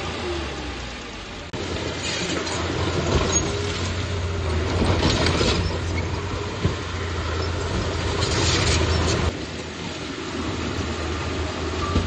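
Komatsu D31P crawler bulldozer's diesel engine working, a steady low drone mixed with track and machine clatter that swells now and then. The sound jumps louder about a second and a half in and eases off near the end.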